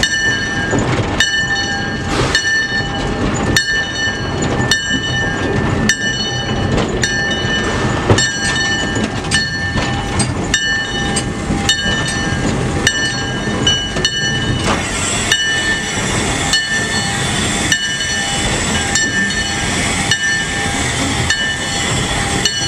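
Steam locomotive moving slowly, heard from inside its cab. A regular knock comes about once a second over a steady high-pitched whine made of several tones.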